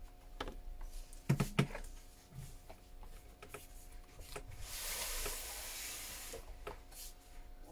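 Small sharp clicks and taps of tools on phone parts, the two loudest close together about a second and a half in, then a hiss lasting about two seconds, over a steady low hum.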